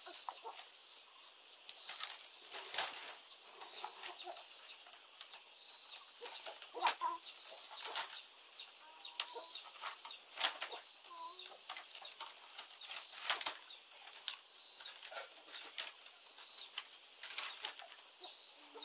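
Split bamboo strips clicking and rustling as they are handled and laid out on a woven bamboo mat, with sharp clicks every second or so. A high-pitched call repeats about every two seconds behind them.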